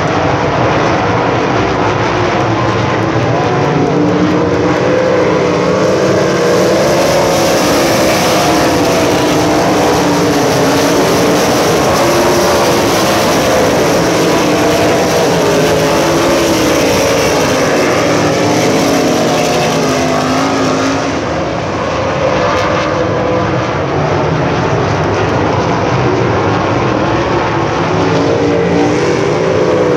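A field of USAC Silver Crown race cars running together on a dirt oval, several engines overlapping in a loud continuous drone whose pitch keeps rising and falling as the cars go through the turns.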